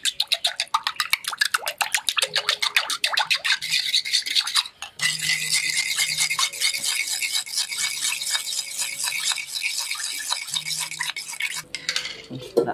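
A metal spoon beats raw eggs in a ceramic bowl, clinking and scraping against the bowl in rapid, even strokes. It breaks off briefly about five seconds in, goes on scraping faster, and stops shortly before the end.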